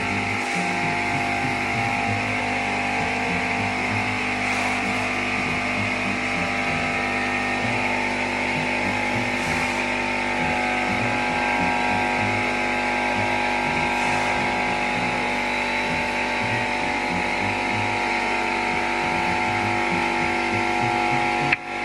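Compressor running steadily: an even hum with several held tones and a strong hissing band above them, with no change in speed or load.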